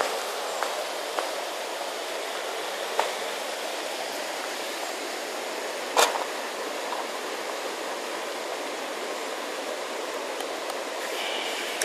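Steady rush of water pouring over a small weir into a pool, with a few short knocks over it, the sharpest about halfway through.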